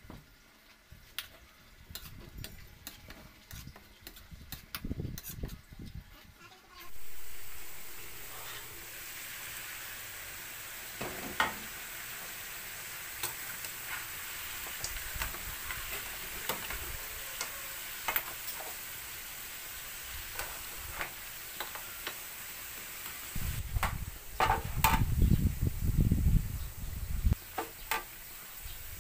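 A metal ladle clicking and scraping in a steel wok, then a sudden loud sizzle about seven seconds in as crabs go into the hot wok, frying steadily after that. Heavier knocking and scraping near the end as the crabs are turned in the wok.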